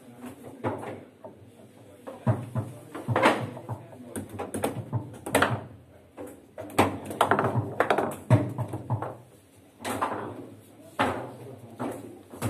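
Foosball table in play: the ball is struck by the players' plastic figures and clacks against the table, with the rods knocking as they are spun and slid. About a dozen sharp knocks come at uneven intervals.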